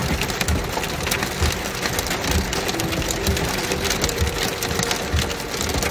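Small hail pelting a vehicle, heard from inside the car: a dense, steady rattle of many sharp ticks on the roof and glass.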